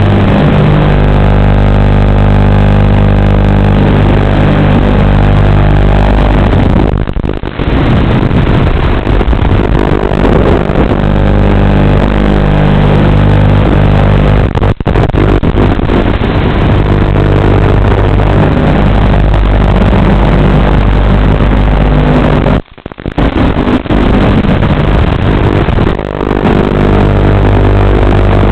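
FPV quadcopter in flight, its motors buzzing steadily with a constant hum underneath and some wavering in pitch. The sound drops out briefly a few times.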